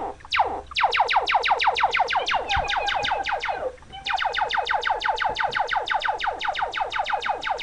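Sci-fi ray gun sound effect from a phone sound-effects app: two slow descending zaps, then rapid-fire falling zaps, roughly eight a second, pausing briefly about four seconds in before firing on again.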